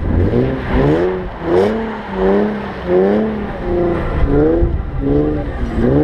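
Infiniti G37x's 3.7-litre V6 with an aftermarket Ark Grip exhaust, revving up and down over and over as the car spins donuts in snow, its pitch rising and falling again and again.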